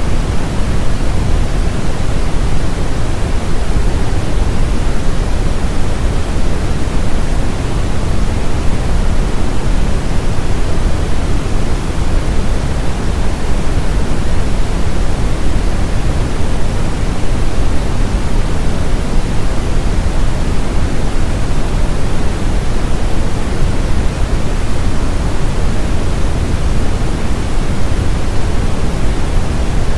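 Steady brown noise: an even, deep rushing hiss, strongest in the lows and fading toward the highs, with no change.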